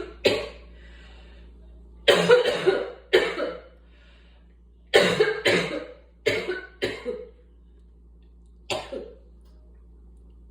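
A person coughing from asthma in repeated bouts: a single cough at the start, a cluster of two or three about two seconds in, four in quick succession around five to seven seconds, and one more near the end.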